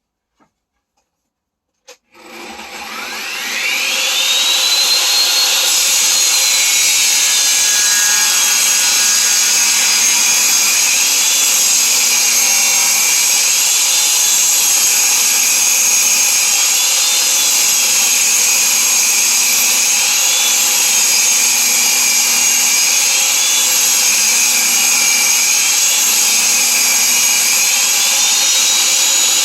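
Table saw switched on about two seconds in, its motor whine rising as the blade spins up, then running steadily. The whine dips in pitch and recovers several times as a board is ripped through the blade to width.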